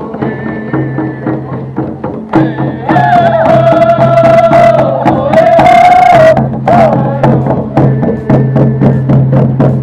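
Parade music with drums beating steadily over a continuous low drone. A melody holds one long high note from about three to six seconds in.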